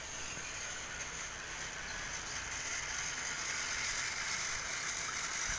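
Motorized Thomas & Friends toy engine running along plastic track: the steady whir of its small electric motor and gears, slowly getting a little louder.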